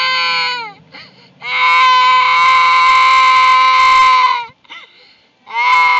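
Young child wailing in long, loud cries held at a steady high pitch, each falling off at the end. One cry ends just under a second in, a long one lasts about three seconds, and another starts near the end.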